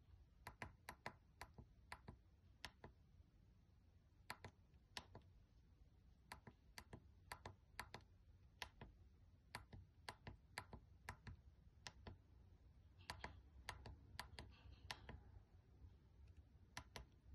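A small tactile push button on a breadboard clicking under a fingertip as it keys Morse code for "HELLO". The clicks are short, sharp and quiet, coming in irregular groups with short pauses between letters.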